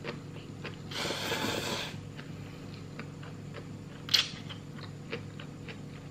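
A person slurping instant noodles from a cup: one noisy slurp lasting about a second, then small mouth and fork clicks with one sharp click about four seconds in, over a steady low hum.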